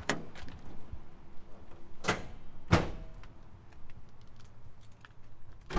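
Daihatsu Rocky's door being opened: a sharp click of the handle and latch about two seconds in, then a louder clunk half a second later as the door comes open, with a few faint clicks of handling around them.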